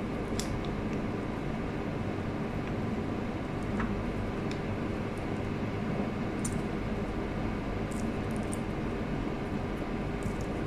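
Steady background hiss and hum, with a few faint rustles and ticks as thin warqa pastry sheets are folded by hand around filling.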